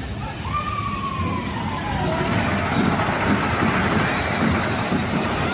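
Mine-train roller coaster running along its track: a steady rumbling rush that grows a couple of seconds in, with a single long falling tone near the start.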